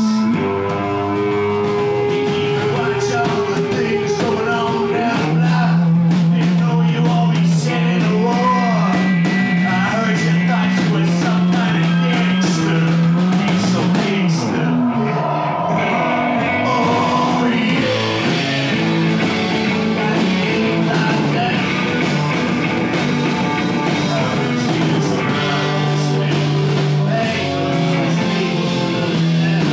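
Live rock band playing at full volume, a man singing loudly into a microphone over strummed guitars.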